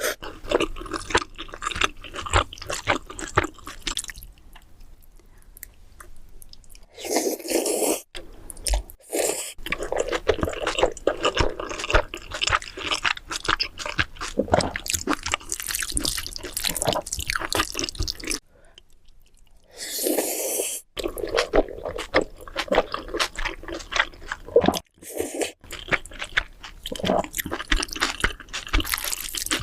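Close-miked eating of black bean noodles (jjajangmyeon): chewing with wet, clicky mouth sounds in long runs, broken by two short quieter pauses, about a quarter and two-thirds of the way through.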